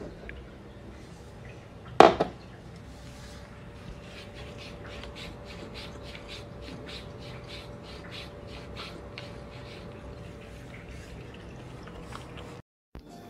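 A glass tumbler set down on a wooden floor with one sharp knock about two seconds in, then a cat lapping water from the glass, soft wet laps about three a second.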